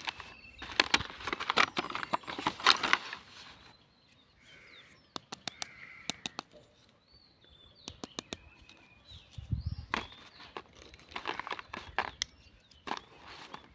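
Rustling and crinkling with sharp plastic clicks, as small toys and their packaging are unwrapped and handled. The rustling is heaviest in the first few seconds, with a soft low thump about nine and a half seconds in.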